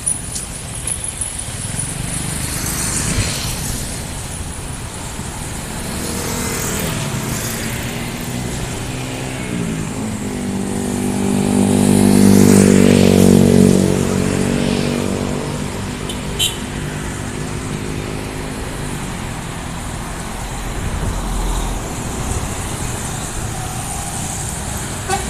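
Road traffic passing steadily, with a heavy vehicle's engine going by close about halfway through, its pitch sliding down as it comes in and then at its loudest for a couple of seconds.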